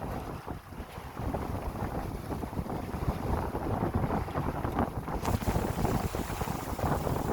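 Wind buffeting the microphone aboard an Adams 24 sailing yacht under way, as a gusty rumble. A brighter hiss joins about five seconds in.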